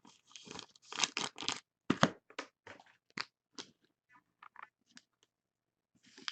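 Crinkling and rustling of trading-card packaging handled by hand: a string of short crackles and clicks, thickest in the first two seconds, then sparser, with one more crackle near the end.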